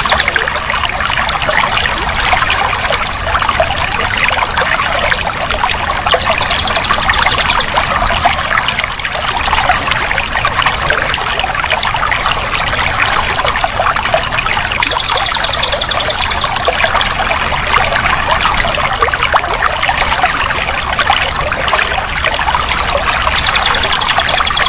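Water running and trickling steadily, a dense continuous splashing hiss. A high, rapid trill about a second long recurs four times over it.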